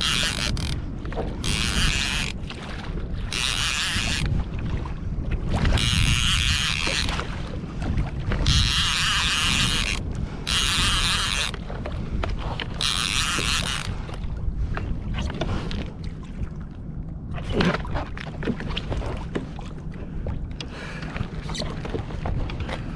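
Kayak under way on open ocean: wind rumbling on the microphone, with water washing against the hull in a series of hissing surges about a second long, roughly every second and a half, that die down after about fourteen seconds.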